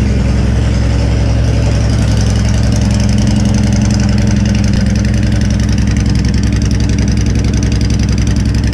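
2017 Honda Fury's V-twin idling steadily through Cobra aftermarket swept pipes, on a cold engine just after a cold start.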